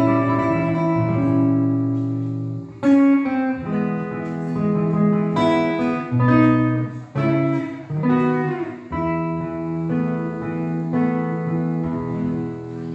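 Nylon-string classical guitar played fingerstyle: a slow hymn melody over ringing chords, with a sharply struck chord about three seconds in, forming the closing bars of the piece.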